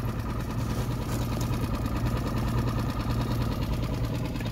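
Boat engine idling, a steady low drone.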